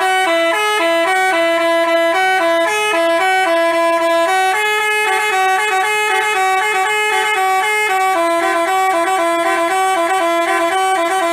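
Basuri telolet bus horn playing a loud melody, a quick tune of short stepped notes that starts and stops abruptly.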